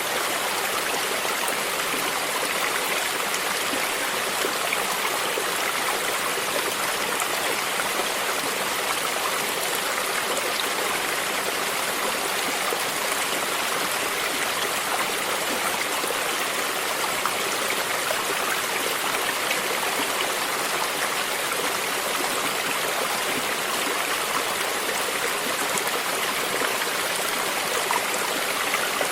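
A stream flowing steadily, a continuous even wash of running water with no breaks or changes.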